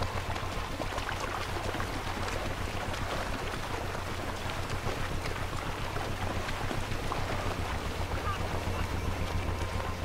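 Water splashing and sloshing as a group of lions wades through a river, a continuous churn of many small, irregular splashes.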